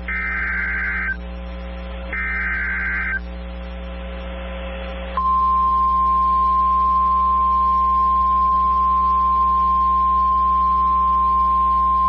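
NOAA Weather Radio emergency alert: two about-one-second bursts of the SAME digital header, a harsh data squawk, about a second apart. About five seconds in, the steady 1050 Hz warning alarm tone starts and holds, signalling a warning (here a severe thunderstorm warning) about to be read. A low hum from the receiver runs underneath.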